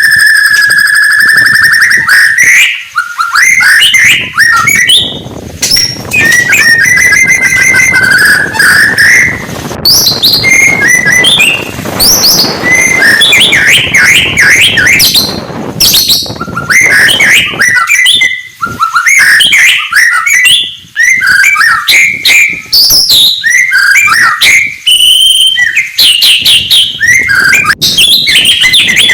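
White-rumped shama (murai batu) in full song, loud and almost without pause. It opens with a held whistle of about two seconds, then runs into a fast, ever-changing string of whistles, trills and chattering phrases.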